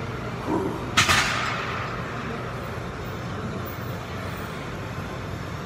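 A single loud metallic clang about a second in, ringing on for a moment: weights being set down or knocked together. It sounds over the steady room noise of a weight room.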